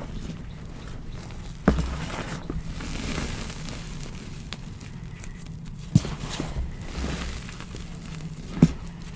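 Gloved hands pressing and squeezing powdery reformed gym chalk topped with charcoal powder: a soft, continuous crunching rustle, broken by three sharp thuds as the hands pat down into the powder.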